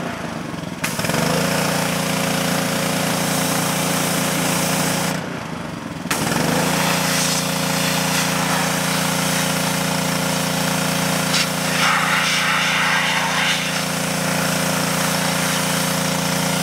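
Engine-driven pressure washer running with a steady hum under the loud hiss of its high-pressure spray blasting a metal computer case side panel. The spray cuts out briefly twice, in the first second and about five seconds in, and is louder for a moment around twelve seconds in.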